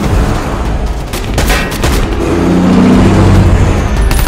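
Movie sound mix of a street shootout: a few loud gunshots about a second and a half in and again near the end, over a low rumble that swells and drones in the middle.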